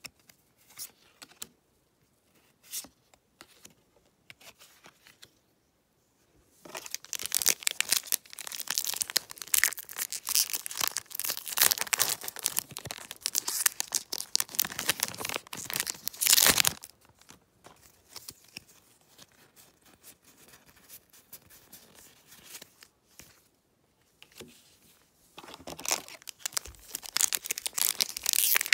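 Foil Pokémon booster pack wrapper being crinkled and torn open by hand: a long stretch of crackling tearing that stops sharply, then a second burst of tearing near the end. A few soft clicks of cards being flipped come first.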